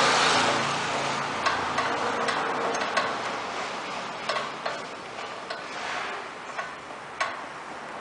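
Automatic transmission fluid draining from a 2001 Honda Civic's transmission into a pan: a hissing stream that fades, with irregular ticks of drips and splashes.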